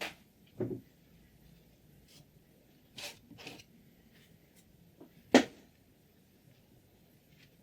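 Scissors being handled: a few short, separate clicks and scrapes, the loudest about five seconds in.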